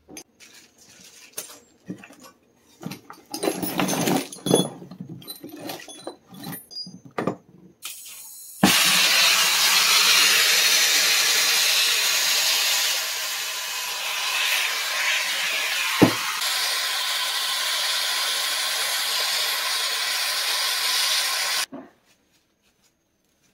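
Brass plumbing fittings clinking and clattering as they are handled, then a hose-fed gas torch hissing steadily for about thirteen seconds, with one sharp click partway through, before it cuts off abruptly near the end.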